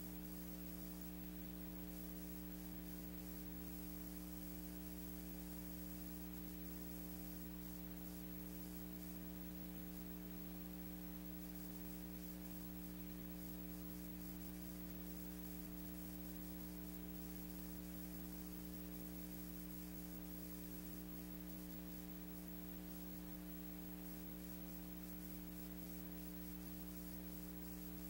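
Steady electrical hum made of several fixed tones, with faint hiss over it; nothing else is heard.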